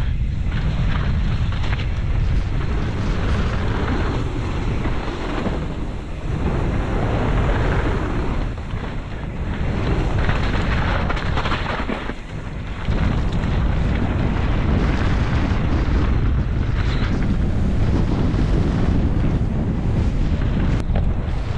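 Wind buffeting an action camera's microphone, mixed with tyre roar and the rattle of a mountain bike descending a rough dirt trail at speed. The noise drops for a moment about twelve seconds in, then comes back as loud.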